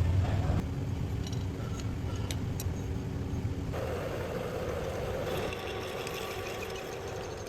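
Metal lathe running with a steady motor hum and a few light clicks. About four seconds in, a louder, rougher sound sets in.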